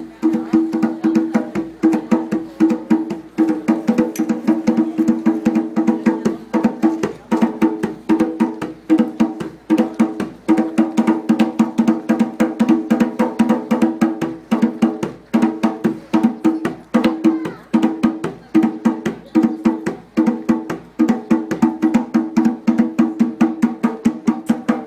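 Live acoustic music: an acoustic guitar strummed over a fast, steady beat on a hand-played frame drum, with sharp, clicky strokes and held chords, amplified through PA speakers.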